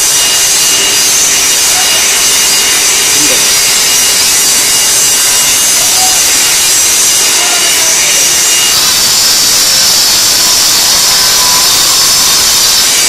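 ESS 3000 stone-cutting saw running, its blade cutting through a stone slab with a loud, steady, high-pitched grinding whine.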